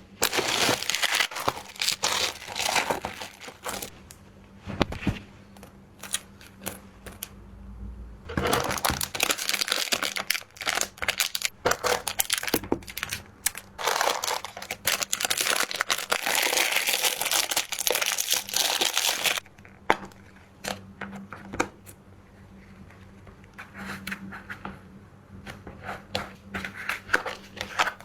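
Packaging crinkling and rustling as it is handled and unwrapped, in long stretches of dense crinkling from the start to about 3 s in and again from about 8 to 19 s in, with scattered crackles and clicks in between and toward the end.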